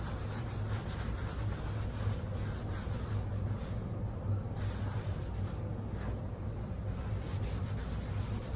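A sponge rubbing silver wax over a sealed, coarse marmorino Venetian plaster sample panel: a continuous scrubbing sound, over a steady low hum.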